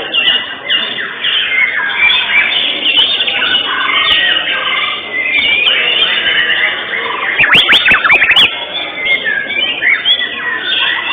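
White-rumped shama (murai batu) singing a fast, unbroken stream of varied whistles and chirps, typical of contest-bird song. A run of sharp sweeping notes comes about two-thirds of the way through.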